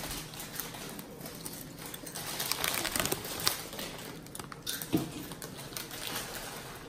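Plastic snack bags crinkling as they are handled, an irregular run of small crackles that gets busiest about halfway through, with a couple of sharper snaps.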